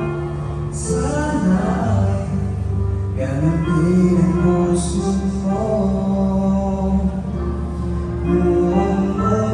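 Karaoke: a singer's voice over a backing track, played loud through a PA speaker.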